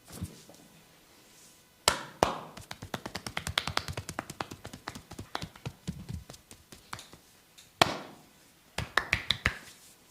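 A massager's hands striking skin in a percussive massage: two sharp slaps, then a fast run of light tapping strikes at about seven a second for several seconds, another loud slap, and a short quick burst of taps near the end.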